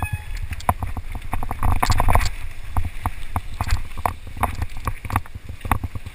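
Mountain bike rattling and knocking over a rocky trail at speed, with many sharp clicks and clatters, over a steady low rumble of wind on the camera's microphone.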